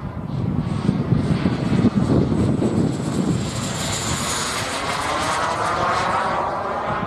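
Jet Munt 100 miniature gas-turbine engine of a YT Pantera radio-controlled model jet flying past overhead, a steady jet roar. Its high turbine whine dips slightly in pitch about four seconds in as the jet passes.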